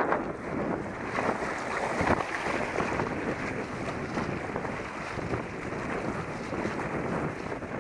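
Wind buffeting the microphone and water rushing past a trimaran under sail, a steady, gusting noise, with one brief thump about two seconds in.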